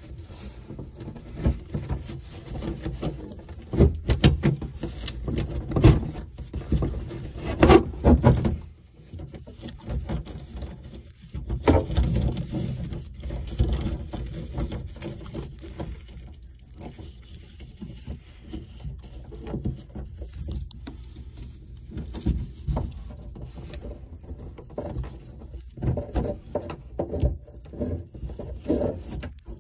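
Handling noise: irregular knocks, rubbing and rustling as a dishwasher's plastic drain hose, water line and fabric strap are pulled and worked through the cabinet, with a burst of louder knocks about 12 seconds in.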